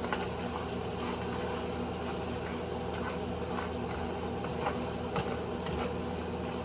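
Seasoned meat for taco filling sizzling steadily in a hot pan while being stirred, with a few light clicks of the utensil against the pan.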